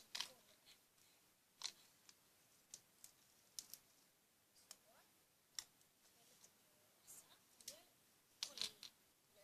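Slime being handled and squeezed, giving faint, irregular sticky clicks and pops, about a dozen in all.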